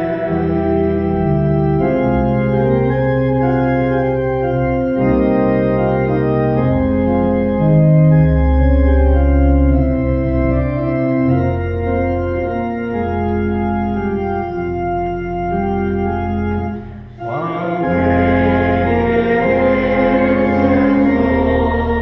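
Allen 600 Series digital church organ playing sustained chords over deep pedal bass notes. Just after the middle there is a brief break before it comes back in fuller and brighter.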